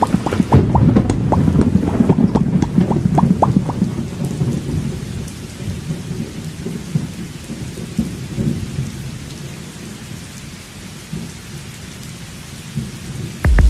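Thunder rumbling over steady rain: the rumble is loudest in the first few seconds, along with a quick run of sharp ticks, then dies away and leaves the hiss of rain.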